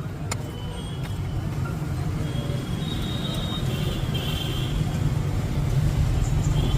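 Steady low rumble of road traffic, slowly growing louder, with faint high tones drifting in midway and a single sharp click just after the start.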